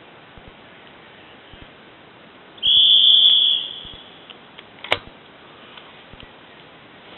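A single steady, high whistle blast lasting about a second, of the kind blown on a driven game shoot to signal the drive. A sharp click follows about a second later.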